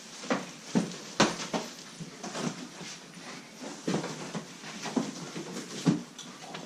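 Cardboard boxes and packaging being handled: a string of irregular knocks and rustles as boxes are opened and pillows taken out.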